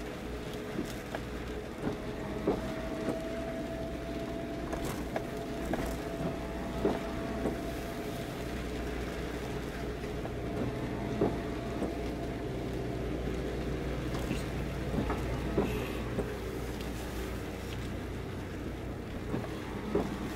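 Steady hum of a car's engine and cabin as it creeps along, with scattered light ticks of rain on the car's body and windshield.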